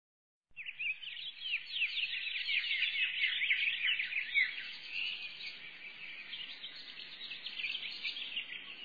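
A dense chorus of many small birds chirping, with quick overlapping chirps that come in abruptly about half a second in.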